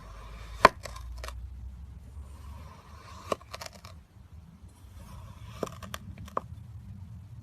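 Kinetic sand being crushed and crumbling, a soft gritty rustle in stretches, with several sharp clicks scattered through it, the loudest about two-thirds of a second in.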